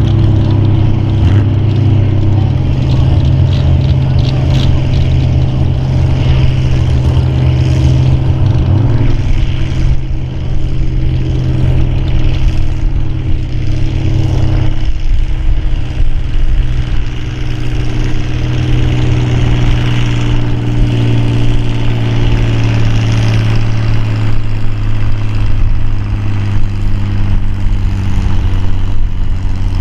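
Farm tractor engine running hard and steady, pulling in a tractor pull, a loud drone that dips briefly about ten seconds in.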